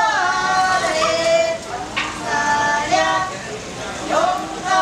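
A high voice chanting in long, drawn-out notes that slide in pitch, phrase after phrase, with a sharp click about two seconds in.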